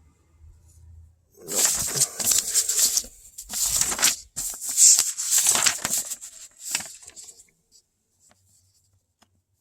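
Rustling and rattling of plastic wiring connectors and wires being handled, in irregular bursts over several seconds, then dying away.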